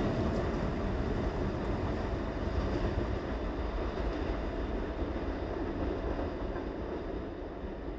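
Diesel-hauled heritage passenger train running past, its engine rumble and wheel noise fading steadily as it moves away.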